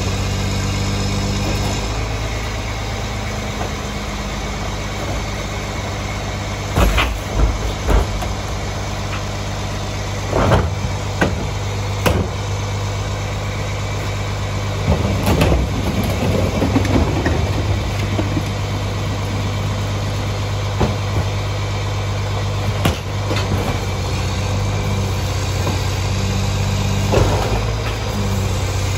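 Mack MR garbage truck's diesel engine idling steadily, while trash carts are tipped into the Heil rear-loader's hopper with repeated bangs and clatters. A quick run of three bangs comes about seven to eight seconds in, and a longer rattle of falling trash around fifteen to seventeen seconds.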